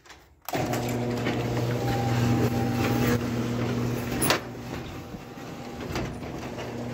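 Electric garage door opener starting about half a second in and running with a steady motor hum as the sectional garage door opens, with a few sharp clicks along the way.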